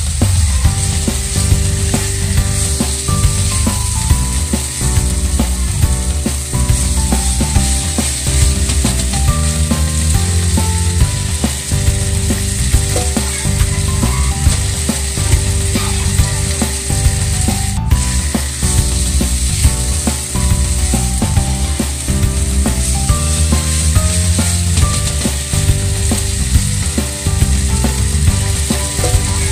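Cubed chicken and chopped onion sizzling in oil in a frying pan, a steady hiss throughout. Under it runs a steady buzzing hum with pitched tones that shift in steps, and a single click about two-thirds of the way through.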